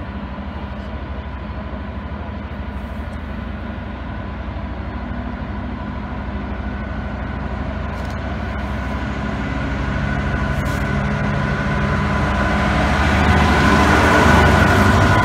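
Freightliner Class 66 diesel locomotive's two-stroke V12 engine running as the locomotive approaches, growing steadily louder with a steady high tone over the engine until it passes close by near the end.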